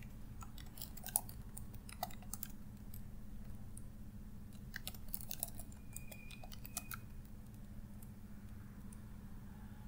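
Computer keys clicking in two short bursts of typing a few seconds apart, a sudo password being typed and then typed again after a wrong entry. A low steady hum runs underneath.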